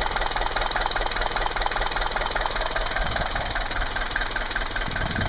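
Mercedes-Benz W123 200D's four-cylinder diesel engine idling with a dodgy, steady rapid clatter. One cylinder is not working well and the exhaust is blowing out somewhere: the owner first suspected a dead injector nozzle, and the fault turned out to be the piston of the first cylinder.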